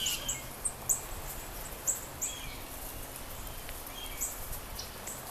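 Small songbirds chirping: about ten short, high chip notes, each a quick downward slur, scattered irregularly over a steady low outdoor background noise.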